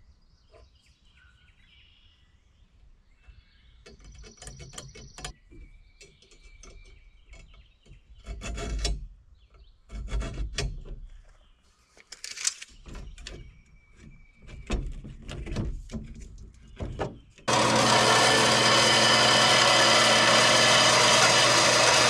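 Hand tools being handled on a length of 1-inch angle iron as it is measured and marked: a tape measure and square clicking, knocking and rubbing in scattered strokes. About three-quarters of the way through, a loud steady machine noise starts suddenly and keeps running.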